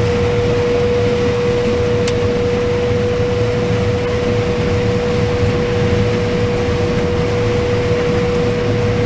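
Combine harvester running, heard from inside the cab: a steady low drone with a constant high whine over it.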